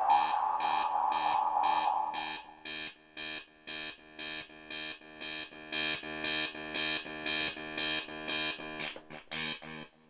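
Breadboarded MFOS Weird Sound Generator synth circuit beeping in an even pulse, about two buzzy pitched beeps a second, with a held tone that fades out in the first few seconds. The sound cuts off suddenly near the end.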